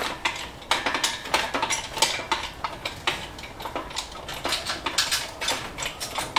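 A hydraulic lifting jack being pumped up by hand: a string of irregular metallic clicks and clanks as the handle is worked.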